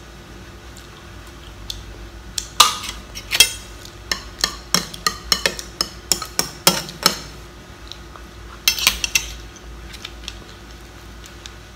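Crab claw shells being cracked open and knocked against a plate: a run of about a dozen sharp clacks and cracks, then a quick cluster of clatter a couple of seconds later.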